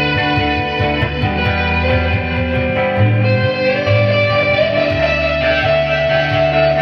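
A band playing an instrumental passage led by electric guitar over a changing low bass line, with a guitar note rising and then held through the last few seconds.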